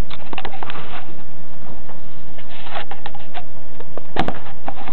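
Scattered small clicks and knocks from handling, with one sharp knock about four seconds in, over a steady background hiss.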